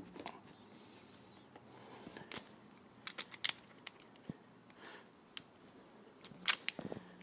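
Scattered small metallic clicks and taps from a Charter Arms Bulldog revolver being handled by hand, with a louder cluster of clicks near the end.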